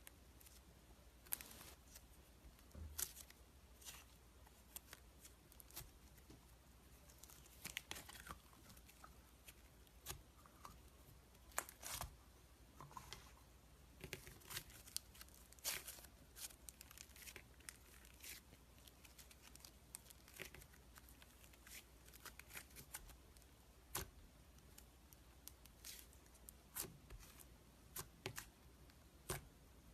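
A slime-filled stress ball being cut and torn open: quiet, irregular snips, clicks and crackles, coming singly and in short clusters.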